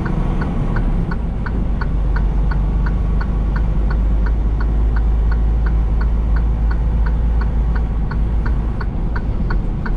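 Turn signal clicking steadily, about three ticks a second, inside a semi truck's cab over the constant low drone of the diesel engine and road noise.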